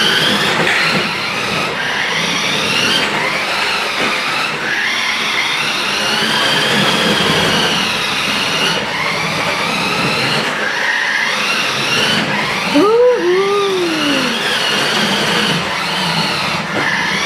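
Electric drive motor of a 1:10-scale radio-controlled toy Lamborghini Murciélago whining as the car is driven about, its pitch rising and falling with the throttle. A brief rising-and-falling call comes about two-thirds of the way through.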